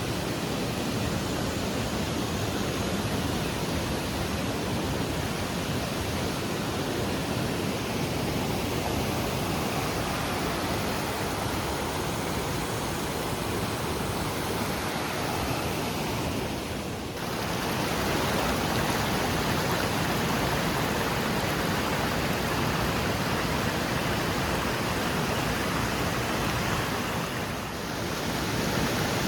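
Waterfall and river water rushing steadily, a dense even noise that dips briefly twice, about 17 and 27 seconds in.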